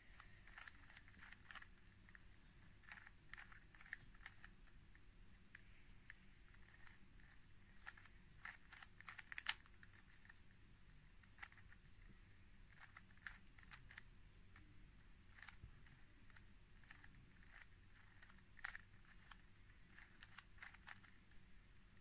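Faint clicking of a plastic 3x3 Rubik's Cube as its layers are turned by hand, in quick irregular runs of clicks with short pauses between them.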